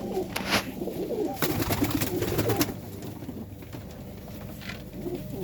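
Serbian Highflyer pigeons cooing, with scattered sharp clicks and scuffles that are busiest in the first half and thin out after about three seconds.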